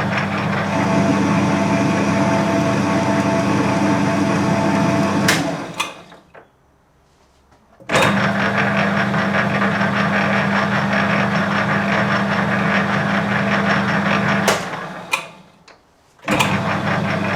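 Metal lathe running under power during thread-cutting with the leadscrew engaged: a steady motor hum and gear whine. It is stopped with a click about five seconds in and coasts down to quiet, starts again abruptly about eight seconds in, is stopped again near fifteen seconds, and starts once more near the end.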